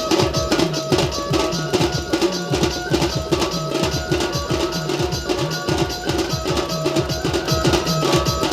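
Music with fast, dense drumming and a low bass figure that bends up and down, repeating about once a second, over steady held higher tones.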